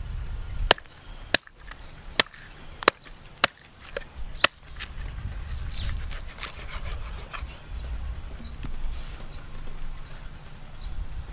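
Cleaver chopping through a black chicken on a round wooden chopping block: six sharp chops, about one every 0.7 seconds, in the first half, then softer, scattered taps.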